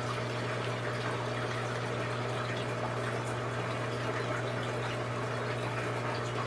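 Aquarium filter running: a steady splash of moving water over a low, even hum.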